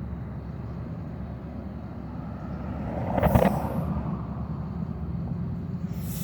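Low steady rumble, with a brief louder rustling noise about three seconds in.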